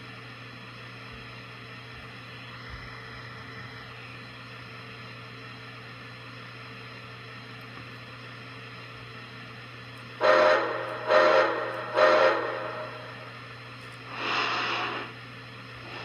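Lionel Pere Marquette 1225 Berkshire model locomotive's onboard sound system over a steady low hum: three short, loud steam-whistle blasts about a second apart, about ten seconds in, then a longer burst of hissing steam a few seconds later.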